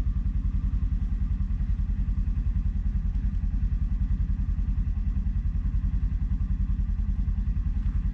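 A vehicle engine idling: a steady low throb with a fast, even pulse that does not change.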